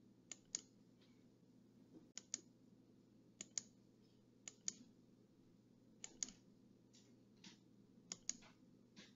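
Faint, sharp clicks, mostly in quick pairs, about one pair a second, over a low steady hum.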